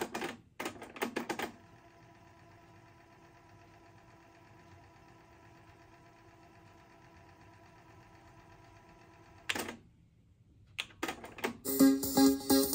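Music from a Sony CMT-CP100 micro hi-fi cuts off, followed by a quick run of mechanical clicks from the unit's buttons and transport. A long quiet stretch with a faint steady hum follows, broken by a few more clicks, and the music starts again near the end.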